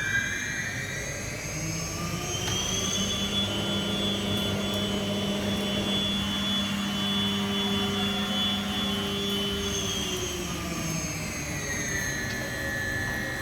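Spindle of a Johnford VMC3000S vertical machining centre running up: a high whine rises over the first few seconds, holds steady, then falls near the end and settles at a lower speed.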